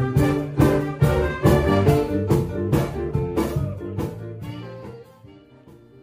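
Big band playing swing, with brass over a steady drum beat, fading out about five seconds in.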